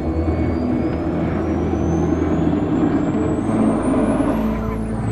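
Model jet turbine engine of an RC jet in flight: a thin high whine that climbs steadily in pitch, peaks near the end and then drops away quickly, over a broad rumble.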